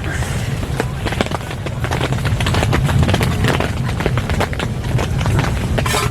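Dog eating from a bowl: rapid, irregular chomping and clicking of teeth and kibble, over a steady low rumble.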